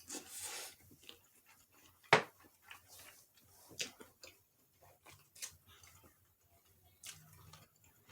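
Close-up eating sounds of king crab legs: scattered sharp clicks and cracks as the shell is handled and picked at. The loudest is a single snap about two seconds in, with soft chewing between.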